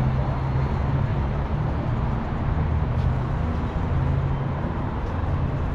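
Steady city street traffic noise from a busy road, with a continuous low rumble.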